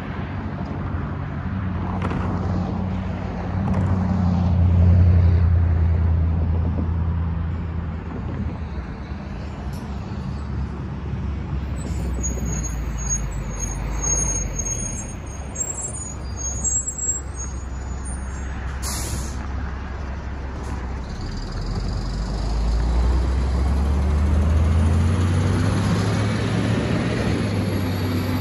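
Road traffic crossing the tracks: engines of passing cars, a van and school buses, with a deep engine drone swelling twice as heavier vehicles go by. A short air-brake hiss comes about two-thirds of the way through.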